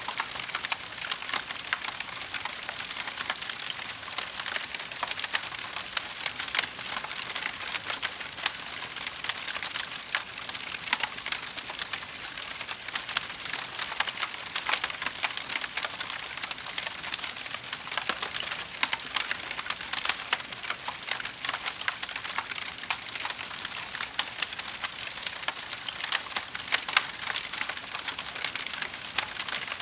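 Fire crackling: a dense, steady stream of small, sharp pops and snaps.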